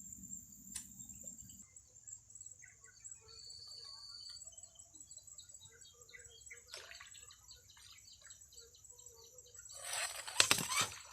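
Outdoor ambience of insects and birds: a steady high insect drone with many small bird chirps scattered through it. A short, loud rustling burst comes about ten seconds in.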